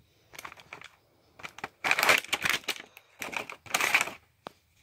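Crinkling and clicking of plastic and cardboard toy packaging being handled, in about three short spells of rustling.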